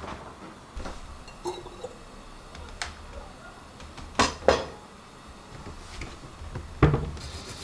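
Dishes and kitchen utensils being handled: scattered clinks and light knocks, with two louder knocks about four seconds in and another near the end.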